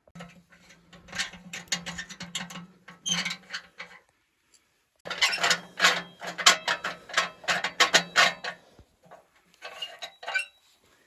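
Rapid mechanical clicking and rattling in two long bursts and a short third one, with a low hum under the first two.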